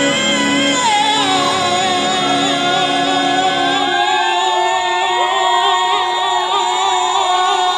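A woman busker sings through a microphone and portable amplifier, holding one long belted note with vibrato. The lower accompaniment stops about four seconds in, leaving the held note.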